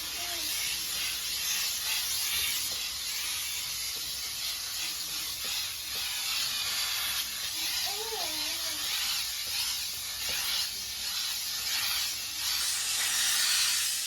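Steam hissing steadily from the Kitfort KT-555 steam mop's garment-steamer attachment as it is held against a garment, a little louder near the end.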